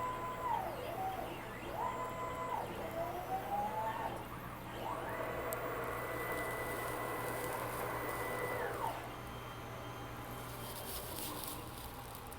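Stepper motors of a DIY CNC plasma table moving the axes: a whine that climbs in pitch, holds and drops back with each move. There are several short moves in the first few seconds, then one longer move of about four seconds, over a steady low hum.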